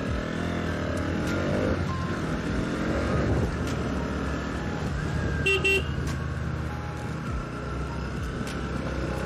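Bajaj Pulsar NS200's single-cylinder engine running on the move, its revs rising and falling. About halfway through, a horn gives two quick short toots.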